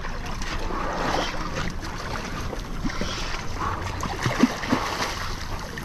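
Water splashing and sloshing as a hooked striped bass thrashes at the surface close to a rocky shore, with a few sharper splashes about four to five seconds in, over wind noise on the microphone.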